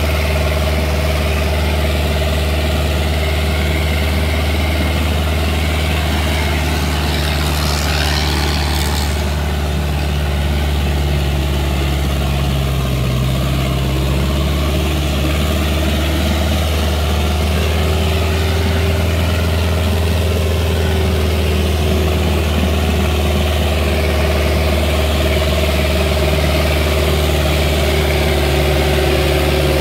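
Sonalika 750 tractor's diesel engine running steadily under heavy load while pulling a 22-disc harrow.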